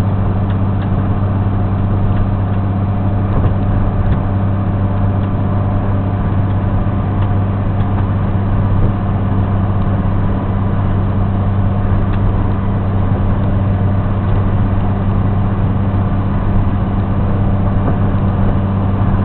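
Steady running drone of a moving road vehicle's engine and road noise, with a constant low hum that holds even throughout.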